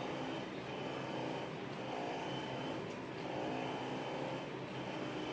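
Electric vibration massager running steadily, a motor hum whose pitch shifts slightly as it is worked over the tight hamstring muscles.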